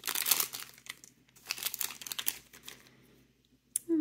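Toy packaging crinkled and handled in two bursts as a small figure is unwrapped, followed by a short click near the end.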